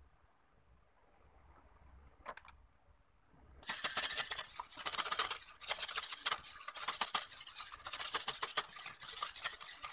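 Wire whisk beating egg yolks, water and oil in a stainless steel bowl: a fast, continuous rattle of the metal wires against the bowl, starting a little over three seconds in after near silence.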